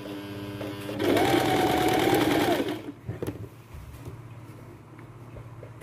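Electric sewing machine stitching: it runs slowly at first, speeds up about a second in and runs fast for about a second and a half, then slows and stops. A single click follows.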